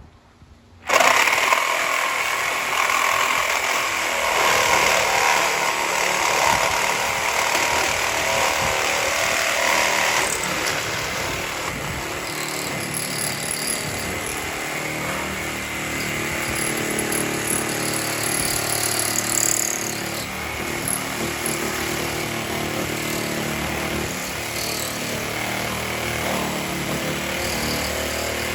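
A power saw cutting into the camper's top bunk. It starts abruptly about a second in and runs without a break.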